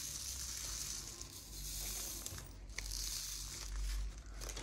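Resin diamond-painting drills poured from a small plastic bag onto a 3D-printed drill tray and shaken across its rails, a fine rattling hiss in two spells, the second near the end.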